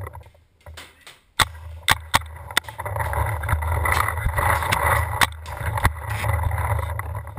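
Paintball markers firing: several sharp, irregular cracks, over a low wind and handling rumble on the helmet camera's microphone.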